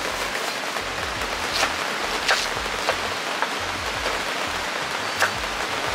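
Heavy rain falling steadily on a tent, with a few sharp taps of a kitchen knife on a wooden cutting board as an onion is sliced.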